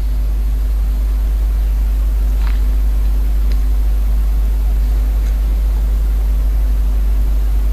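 A steady, loud low hum with a faint hiss over it and a few faint clicks: the background noise of the voice recording, with no words.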